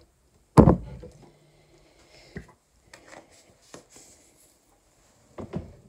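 Containers being handled and set down on a hard surface: a sharp thump about half a second in, then a few lighter knocks and clicks, and another knock near the end.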